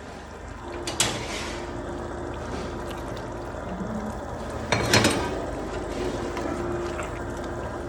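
A pot of Nigerian tomato stew bubbling steadily, with two sudden louder splashes, about a second in and again about five seconds in, as pieces of boiled meat go into it.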